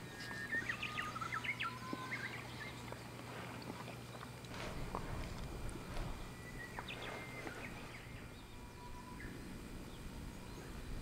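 Birds chirping and whistling in short phrases over faint, steady outdoor background noise; a cluster of calls in the first couple of seconds, more around the middle, and a single held whistle near the end.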